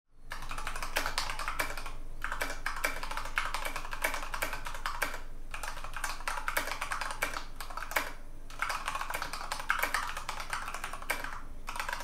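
Fast typing on an iQunix F96 KAT mechanical keyboard: a dense run of key clicks, broken by short pauses about every three seconds.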